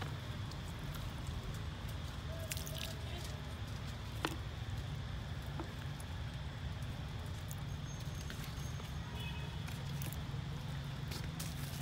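Baby macaques drinking from a plastic water bottle: small wet sipping and dripping sounds with a couple of sharp clicks of the plastic, over a steady low outdoor rumble.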